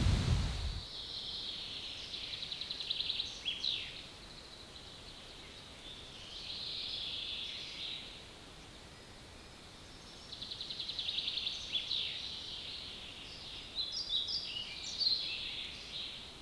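A loud low rumbling noise cuts off suddenly within the first second. Then a songbird sings four separate phrases, each about two seconds long; two of them are fast trills that end in a quick downward flourish.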